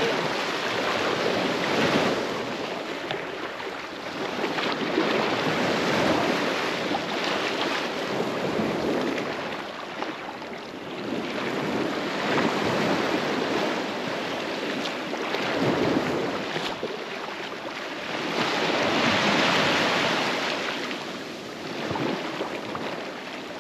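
Surf breaking on a sandy beach: a steady rush of waves that swells and fades every few seconds, with wind on the microphone.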